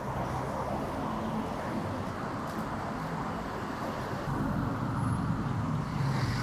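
City street traffic: vehicles passing, with an engine drawing nearer and getting louder over the last couple of seconds.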